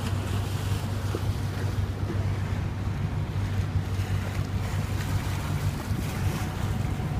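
Boat engine running with a steady low drone, under a wash of water and wind noise on the microphone.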